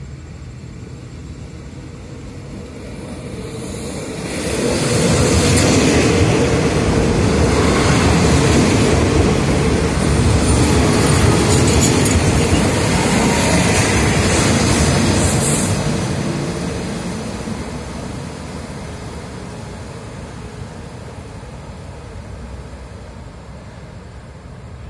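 A diesel express passenger train of State Railway of Thailand runs through the station close alongside the platform. The rumble of its engine and of steel wheels on the rails builds over a few seconds. It stays loud for about ten seconds as the cars pass, then fades steadily as the train runs away.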